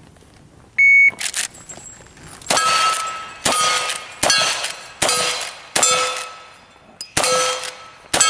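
Electronic shot-timer start beep, then a string of about six gunshots, roughly one every second, each followed by a clang of steel targets being hit.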